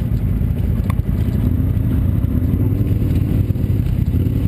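ATV engine running steadily, a loud low drone.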